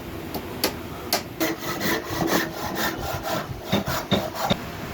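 Wood being worked by hand: a dozen or so short, irregular scraping strokes of a tool against wood.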